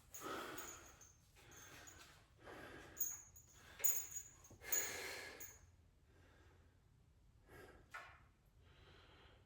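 A man breathing heavily between sets of exercise, about six loud breaths in and out, with a few light clicks among them.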